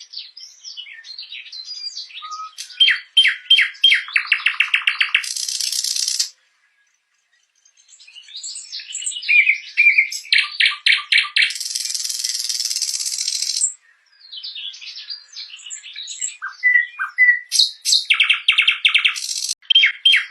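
Nightingale singing three song phrases. Each phrase mixes varied whistled notes, fast runs of rapidly repeated notes and harsh buzzy stretches. The phrases are split by a pause of about a second and a half, a third of the way in, and a brief break later on.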